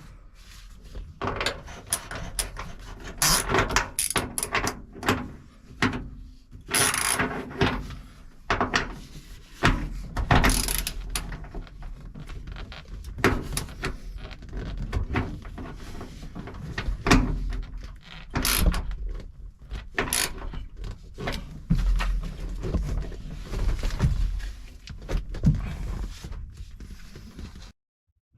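Irregular clunks, clicks and scraping of metal seat-belt hardware and hand tools being handled while a rear seat belt is bolted down inside a car.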